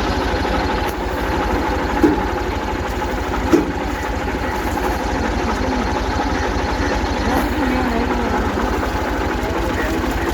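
A tractor-driven maize sheller running: a steady, fast engine throb under the noise of the threshing machinery. Two brief knocks sound about two and three and a half seconds in.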